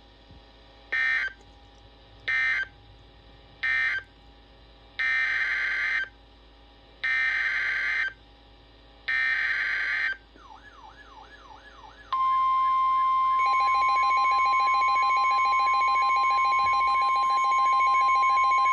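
NOAA Weather Radio alerting signals: three short SAME data bursts that end the previous flood warning, then three longer SAME header bursts for the next one. After them comes a falling, warbling alert sound, and about two-thirds of the way through the loud, steady 1050 Hz warning alarm tone starts, with the warble continuing over it.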